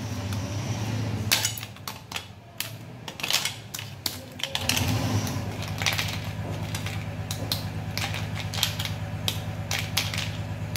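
Hard butterscotch almond brittle snapping and cracking as hands break it into pieces, with shards clicking against a steel plate in quick irregular runs. A steady low hum comes in about halfway.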